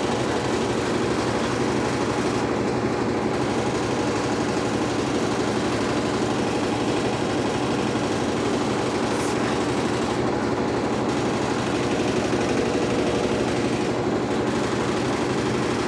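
Electrolux LTE12 top-loading washing machine running with a steady, fast rhythmic mechanical churning that does not change.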